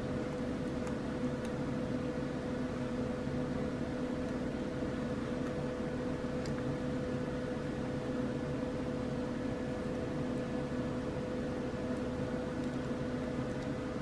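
Steady machine hum, like a fan or other appliance running in the room, with a few faint clicks.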